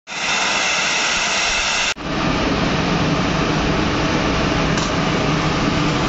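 Steam jetting from a vent pipe on a large steam boiler, a loud steady hiss. About two seconds in it cuts off abruptly and gives way to a steady, deeper rushing noise.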